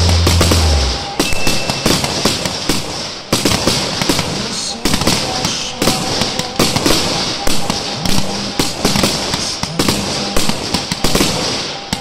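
Aerial fireworks display: a dense run of bangs and crackling from bursting shells, irregular and ongoing. A loud low drone, heard as music beforehand, stops about a second in.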